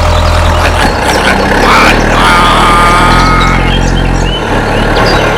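A vehicle engine runs steadily, its low drone stepping up and down in pitch. About two seconds in, a brief high whine sounds over it.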